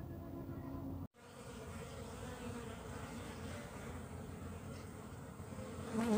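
Asian honeybees (Apis cerana) buzzing as a colony on the open comb, a steady hum with a very brief dropout about a second in.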